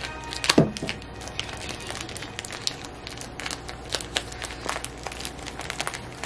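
Plastic wrap of a smoked sausage ring crinkling and crackling as a knife slits it open and hands pull it apart, with many small clicks. A brief louder sound with a falling pitch comes about half a second in.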